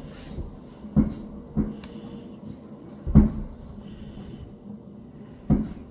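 Aerial firework shells bursting, heard as four dull, muffled booms through window glass, the loudest about three seconds in.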